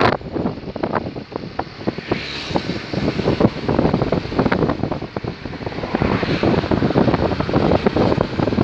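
Wind buffeting the microphone of a moving vehicle, with road and engine noise beneath, rising and falling in gusts.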